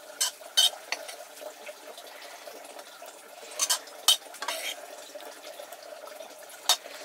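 Metal kitchen utensils clinking and knocking against pots and dishes, with about seven sharp clinks spread irregularly over a few seconds.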